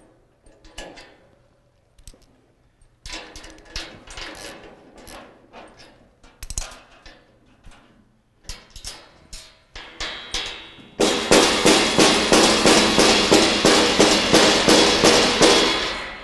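Scattered metal clinks and taps as bolts and nuts are fitted into a steel workbench frame. About eleven seconds in comes a loud run of rapid hammer blows on the steel frame, about four a second, lasting some five seconds.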